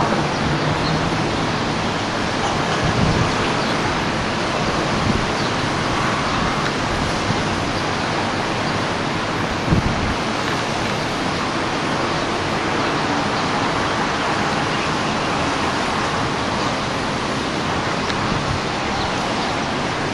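Steady wash of distant city traffic noise from the streets below, with two brief low bumps on the microphone, a few seconds in and near the middle.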